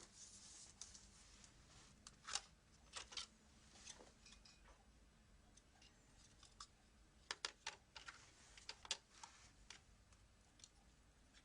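Light, irregular clicks and taps of small hardware being handled: a screwdriver, screws and the metal drive caddy bracket of a laptop's second hard-drive bay. The clicks come in two small clusters, one a couple of seconds in and another past the middle.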